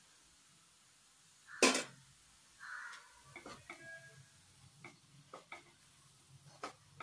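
Wooden spatula stirring diced potatoes in a nonstick wok: one sharp knock on the pan a little under two seconds in, then light scrapes and scattered clicks against the pan.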